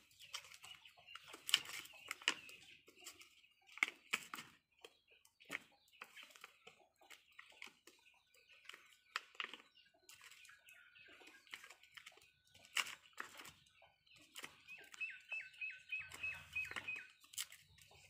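Birds calling in the background, with a quick run of short repeated chirps near the end, over scattered sharp clicks and taps from hands working epoxy putty around a lighter fitted in a PVC end cap.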